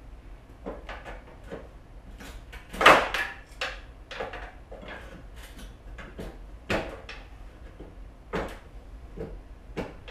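Tools knocking and scraping on a mobility scooter's metal frame as it is pried apart during teardown: irregular clanks, the loudest about three seconds in.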